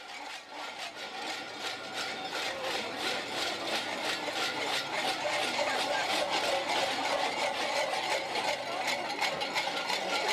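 Bells on masked devil costumes jangling in a fast, continuous rattle with a ringing undertone, growing louder over the first few seconds as they come closer.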